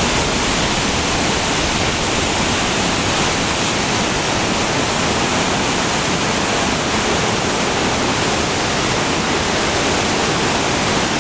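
The Tormes river in flood, swollen brown water rushing through rapids: a loud, steady rush of churning water.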